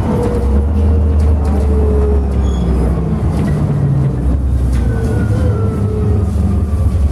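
Ride inside a moving city bus: engine and road noise make a loud, steady low rumble. A thin mechanical whine slowly falls in pitch in the second half, with occasional light rattles.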